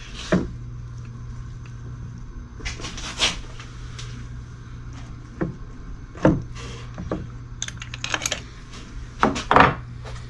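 Automatic transmission internals being handled and set down on the bench: scattered metallic clinks and knocks, a few louder ones, the loudest near the end, over a steady low hum.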